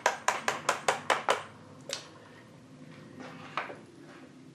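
Small hammer tapping rapidly on the end of a steel shaft in a Harrison M300 lathe's feed gearbox, about four to five blows a second, to drive the shaft out. The blows stop about a second and a half in, and a few light metal knocks follow.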